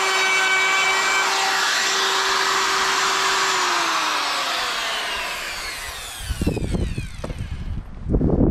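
Handheld electric power tool motor running at a steady high whine, then switched off about three and a half seconds in and winding down in pitch over the next few seconds. Near the end, low rumbling thumps on the microphone.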